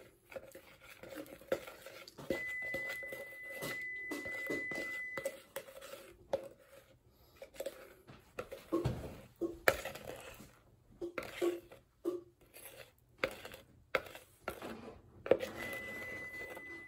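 Spatula scraping and tapping thick brownie batter out of a plastic mixing bowl into a glass baking dish, with scattered clicks and a few sharp knocks. An oven's steady high beep sounds for about three seconds starting about two seconds in, and starts again near the end, signalling that it has finished preheating.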